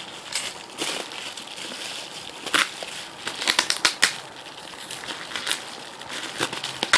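Plastic packing wrap crinkling and crackling in irregular bursts as tape is cut with scissors and the wrap is handled and pulled from a box.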